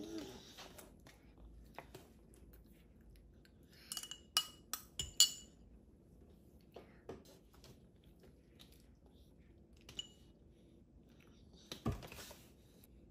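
A metal fork and spoon clinking against a small glass cup and a plate: a quick run of five or six ringing clinks about four to five seconds in, and one more near ten seconds. A soft thump near the end.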